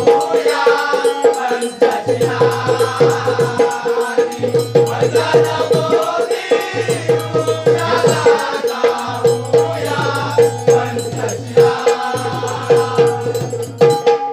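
Bhim geet sung by a group voice with instrumental accompaniment: a steady held drone, a shaker-like rattle and a repeating low beat. The music cuts off suddenly at the end.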